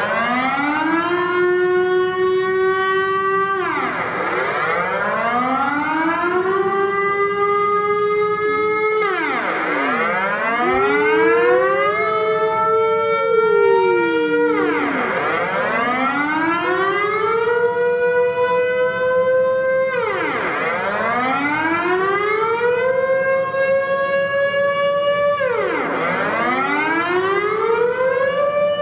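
Civil defence warning siren wailing. Its pitch climbs, holds and then drops sharply, over and over, about every five to six seconds, and a second siren tone glides up and back down across it midway through.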